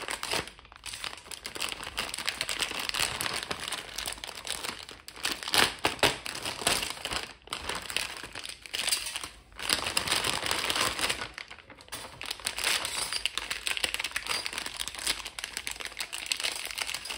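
Plastic wrappers of a Chupa Chups Bubble Gum lollipop multipack crinkling as the bag is pulled open and the individually wrapped lollipops are handled, with a few brief pauses.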